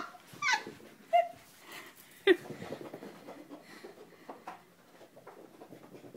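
Corgi puppy giving a few short, excited yips and growls during a post-bath burst of zoomies, three in the first couple of seconds, the loudest about two seconds in, then only faint scattered sounds.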